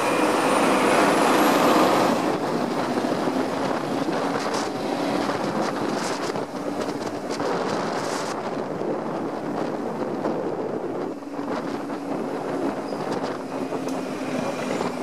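Quad roller skate wheels rolling fast downhill on an asphalt road close to the microphone, a steady rumbling rush, louder for the first couple of seconds, with a few sharp clicks from the wheels hitting bumps in the surface.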